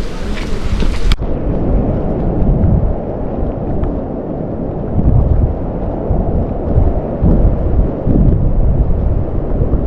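Wind buffeting the microphone in gusts, a loud low rumble that swells and eases irregularly.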